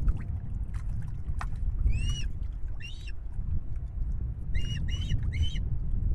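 Osprey calling: five short, sharp whistled calls, one about two seconds in, another a second later, then three in quick succession near the end, over a steady low rumble.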